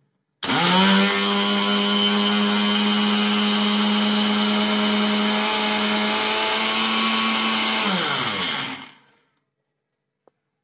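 Electric mixer grinder blending carrot, sugar and milk in its stainless steel jar: the motor starts about half a second in with a quick rise in pitch, runs steadily at full speed for about seven seconds, then is switched off and winds down with a falling pitch.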